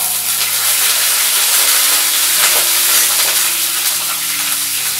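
Chopped small onions (shallots) tipped into hot oil with popped mustard seeds in a frying pan, sizzling loudly and steadily as they are stirred with a wooden spatula.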